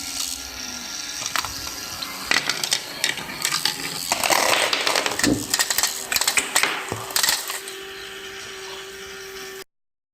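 Small student-built mechanical contraption working: irregular clicks, rattles and clatter of small parts, joined by a steady motor-like hum about halfway through. The hum cuts off abruptly near the end.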